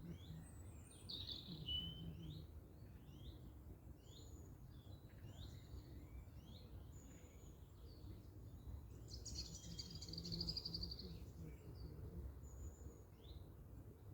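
Small birds chirping with short, repeated calls, with a brighter, fast trill about nine seconds in, over a steady low rumble.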